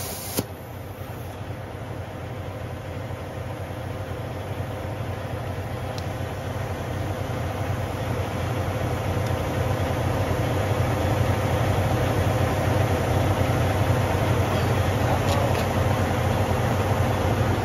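Semi truck's diesel engine idling steadily, a low rumble that slowly gets louder. A burst of air hissing at the tire valve cuts off about half a second in.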